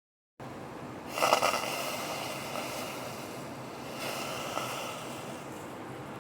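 Water drops sizzling and hissing on a very hot, empty pot, with a louder crackling surge about a second in and another about four seconds in over a steady hiss. The pot is hot enough that the drops skate and roll across the metal rather than boiling off at once.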